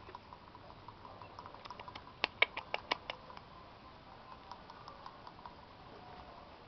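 Silver Fox rabbit kits moving about a wire-mesh hutch, faint scratching and ticking, with a quick run of about six sharp clicks a little over two seconds in.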